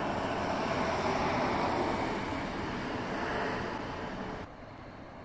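Electric locomotive-hauled regional train rolling away along the tracks: a steady rush of wheel-on-rail noise that eases off, then drops suddenly to a quieter background about four and a half seconds in.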